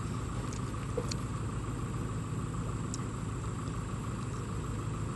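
Pickup truck and farm tractor engines idling steadily with a low, even hum.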